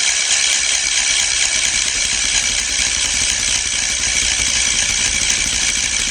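Bicycle being ridden: a steady, loud rattling hiss of its moving parts and tyres.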